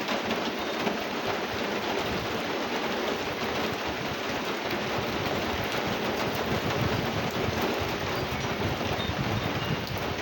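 Steady rain falling in a thunderstorm, an even hiss with scattered ticks of drops.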